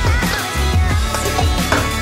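Background electronic music with a steady beat of deep bass thumps about twice a second and a wavering high melody.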